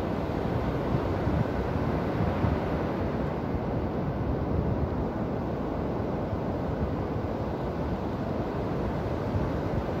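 Atlantic surf breaking on a sandy beach: a steady, low rumbling wash of waves with no single crash standing out.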